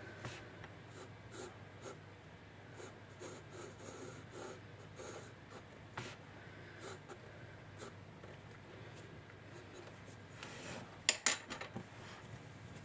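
Pencil scratching across sketchbook paper in many short strokes as a drawing is sketched. About eleven seconds in, a few sharp knocks, the loudest sounds here.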